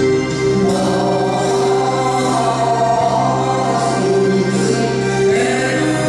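Korean trot song: a woman singing into a microphone over the song's instrumental accompaniment, played through the stage sound system.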